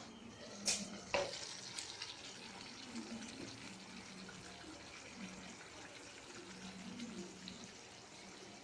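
Chicken curry cooking in a pan, a faint steady sizzle, with two sharp knocks about a second in.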